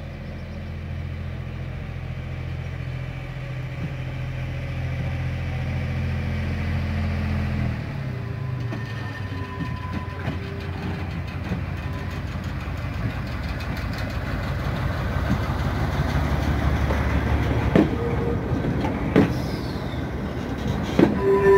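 Diesel engine of a railway maintenance motor vehicle (TMD) running as it approaches, its engine note dropping away about eight seconds in. Then rolling noise grows as it and its flat wagons pass close by, with a steady squeal and a few sharp knocks near the end.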